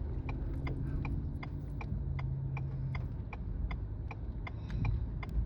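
A car's turn-signal indicator ticking steadily, about two and a half clicks a second, over the low rumble of the car. A low rumble of thunder swells near the end.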